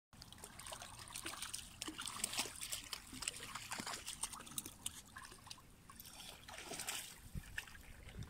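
Shallow river water splashing and trickling over stones as a dog and a person wade through it, with many small irregular splashes.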